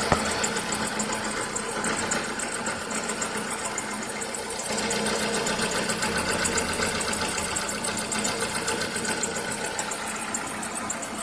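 Nissan Primera engine running steadily at idle, with a whistle from some part that the owner has not yet identified.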